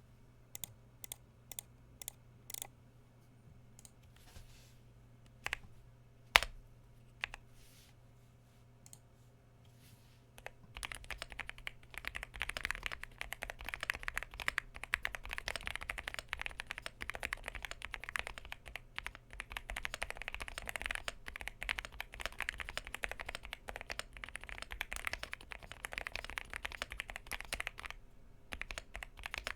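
Yunzii AL75 mechanical keyboard with Outemu Pink Jade switches and PBT keycaps: a handful of single keypresses, then, about ten seconds in, steady fast typing that runs until near the end.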